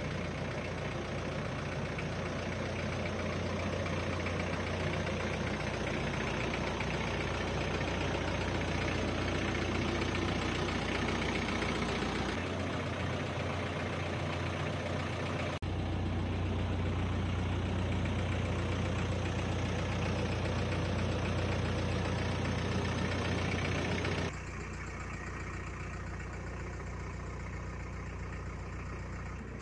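The VM 2.5-litre four-cylinder turbodiesel of a 1990 Range Rover Classic idling with a steady low hum. About 24 seconds in it turns abruptly quieter and duller, heard from inside the cabin.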